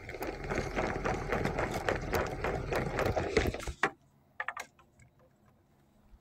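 Close rustling and clicking handling noise as the phone or camera is moved about with its microphone rubbed and covered. It stops suddenly a little under four seconds in, leaving faint sound with a few scattered clicks.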